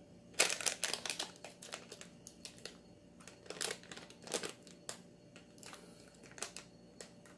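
Packaging crinkling as it is handled and turned over: an irregular run of short, sharp crackles.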